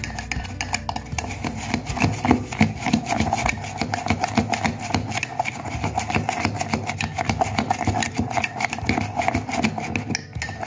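Metal spoon beating instant coffee, sugar and a little water against the inside of a glass mug by hand: rapid, continuous scraping and clinking of the spoon on the glass. The mix is being whipped until it turns light brown and creamy.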